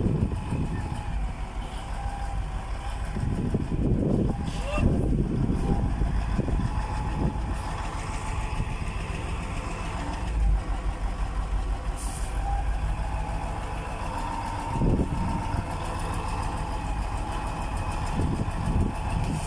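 Hyundai D8AV diesel truck engine idling steadily with a low, even rumble.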